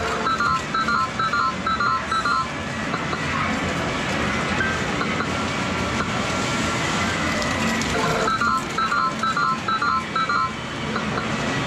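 Sigma Red Dog Poker video-poker cabinet playing its electronic game sounds: a quick run of short stepped beep tones at the start and again about 8 seconds in, over a steady background din of other arcade machines.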